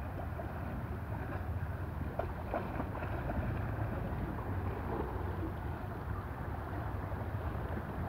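Wind rumbling on the microphone over small waves lapping against shoreline rocks, with a few small splashes about two to three seconds in.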